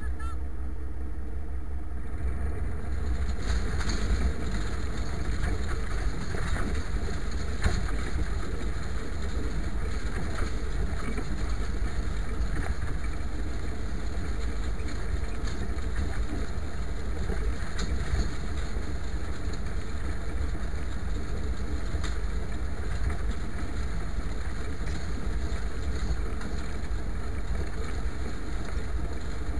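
IMT 539 tractor's three-cylinder diesel engine running steadily under load while pulling a harrow.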